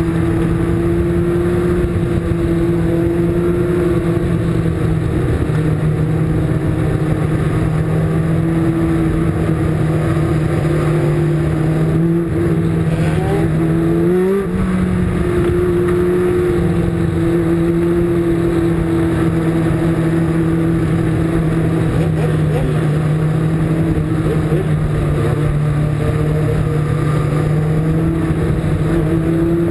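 Onboard sound of a Legends race car's engine at racing speed, holding a steady high pitch under a constant rush of wind noise. About halfway through the pitch sags briefly, then climbs quickly back up and holds.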